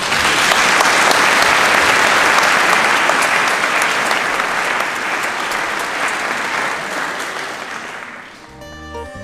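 A church congregation applauding, the clapping starting at once and slowly dying away over about eight seconds. Near the end, plucked-string music comes in.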